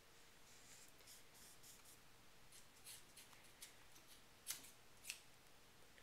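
Scissors snipping through a soft rope: a run of faint snips, then two sharper snips about half a second apart near the end.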